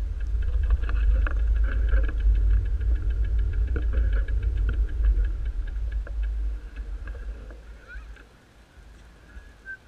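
Wind buffeting the microphone of a slowly rolling bicycle, with the rapid, even ticking of the coasting freewheel hub; the rumble dies down about seven seconds in.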